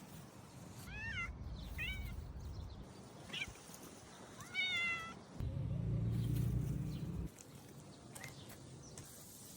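Domestic cat meowing in a series of short rising-and-falling calls, the fourth one longer, about four and a half seconds in. A louder low steady rumble follows for about two seconds.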